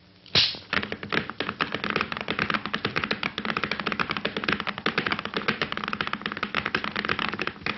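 Cartoon sound effects: a sharp hit, then a fast, continuous clatter of taps lasting several seconds.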